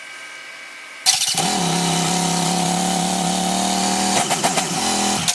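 Yamaha XT1200Z Super Ténéré's parallel-twin engine starting on the electric starter: it catches at once and runs steadily for about three seconds, then falls in pitch and cuts off near the end. An easy start, not the hard start the owner is trying to provoke.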